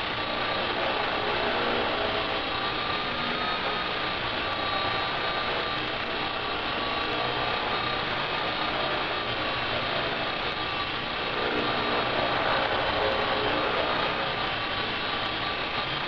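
Walkera 60 collective-pitch RC helicopter hovering, its brushless electric motor giving a steady high whine that wavers slightly in pitch, over the rushing noise of the spinning rotor blades.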